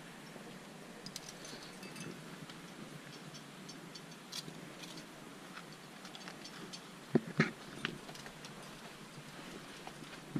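Scattered light clicks and clinks of a trad climber's gear and rope handling against rock, with two sharp knocks close together a little past the middle and a softer one just after.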